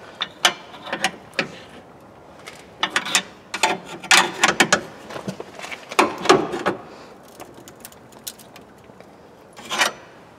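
A screwdriver levering and knocking a bent sheet-metal bracket behind a car's front fender and bumper: scattered metallic clicks, scrapes and knocks in several short clusters. The bracket is being bent back toward the fender to correct a misaligned fender-to-bumper joint.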